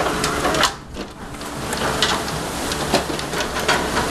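Live king crabs' shells clicking and knocking against a plastic sorting table, over a steady hum of boat machinery. The sound drops away briefly a little under a second in.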